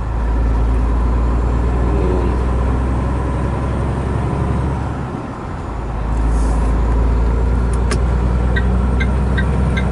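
Truck's diesel engine droning steadily as heard inside the cab while driving, dropping off for about a second midway and then coming back. Near the end a regular ticking starts, about two to three ticks a second.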